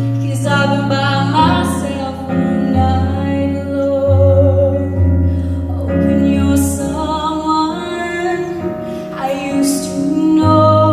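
Live band playing a slow pop ballad: a female voice holds long sung notes with vibrato over keyboard chords and a steady electric bass line, with a few cymbal crashes on the drum kit.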